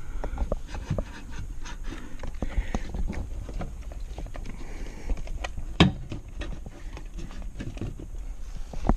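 Irregular clicks and knocks of a BMW E46 fuse box being handled and worked into its mounting notches, with one louder knock about six seconds in and another near the end.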